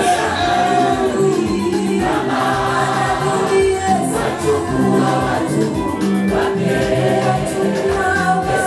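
Gospel choir singing with amplified backing music that has a steady beat and a repeating bass line.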